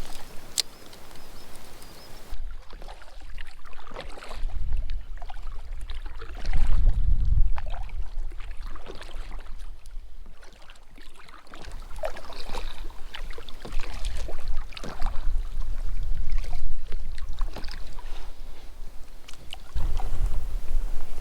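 Packraft paddle dipping and splashing in the water stroke after stroke, with water dripping off the blades. Gusts of wind rumble on the microphone on and off.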